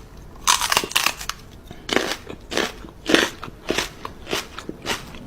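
Crunching and chewing: a run of short, irregular crunches, a few a second.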